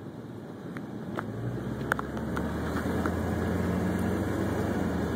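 Tow truck engine running and pulling as the truck reverses, its low hum building about a second in and then holding steady. A few faint light clicks in the first three seconds.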